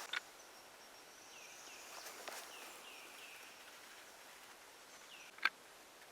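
Faint bird calls, a quick run of short down-slurred chirps in the middle, over a thin high steady tone. A single sharp click about five and a half seconds in.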